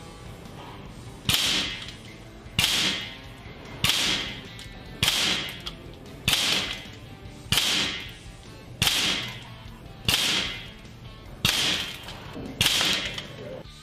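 Weihrauch HW44 pre-charged pneumatic air pistol firing .22 pellets: ten sharp shots about a second and a quarter apart, each a crack that dies away over about half a second. Faint background music runs underneath.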